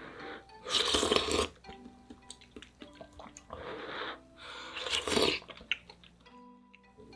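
Spicy ramyeon noodles being slurped three times: a long slurp about a second in, then two shorter ones near four and five seconds, with quieter chewing between.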